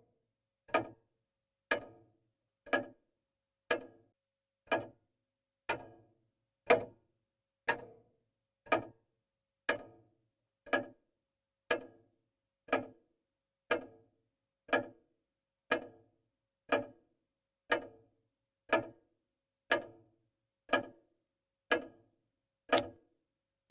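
A wall clock ticking, one tick a second, with nothing heard between the ticks.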